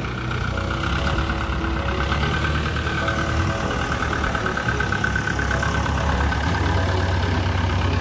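Mahindra 475 DI tractor's diesel engine running at idle, its low, even firing pulses growing stronger and more distinct about six and a half seconds in.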